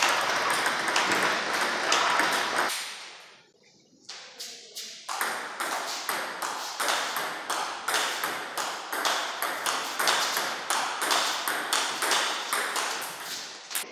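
Table tennis balls clicking rapidly off bats and the table during fast play. The ticking fades out about three seconds in, then resumes a couple of seconds later and continues as a quick rally.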